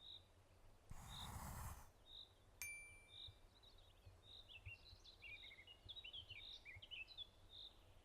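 Faint birdsong: a short high chirp repeated about once a second, joined in the middle by a quick twittering phrase of falling notes. A brief rush of noise comes about a second in, and a sharp click just before three seconds.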